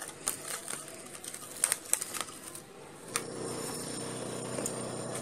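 Plastic cling film crinkling and crackling in short sharp clicks as it is pressed down around the rim of a steel bowl. About three seconds in the clicks give way to a steady low hum.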